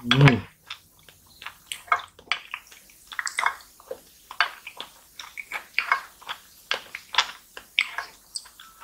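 Close-up wet slurping and smacking of soft jelly sucked off a plastic spoon and chewed: a quick, irregular run of short wet clicks and squelches.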